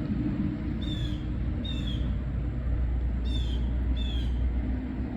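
A bird chirping in pairs of short, high calls, twice, over a steady low rumble.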